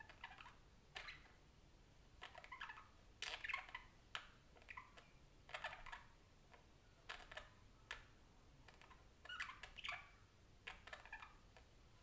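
Budgerigar chattering faintly: short scratchy chirps and warbles in an irregular run, about one brief burst every second.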